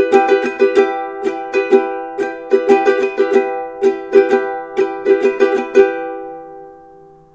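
Kala KA-15S satin mahogany soprano ukulele strummed on an E minor chord in a down-down-up, down-down-up-down-up-down-up pattern. The last strum, about six seconds in, is left to ring and fade away.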